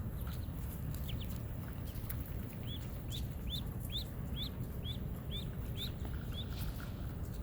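Ducklings peeping: a couple of short high peeps about a second in, then a run of about eight evenly spaced peeps at roughly two a second, over a steady low background noise.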